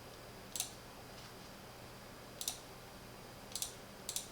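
A few light computer mouse clicks, spaced out, with two in quick succession near the end.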